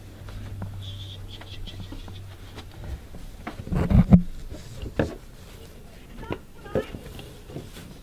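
Handling and movement noise from a handheld camera being carried around a room: rustles and knocks, with a loud bump about four seconds in. A low steady hum stops about three seconds in.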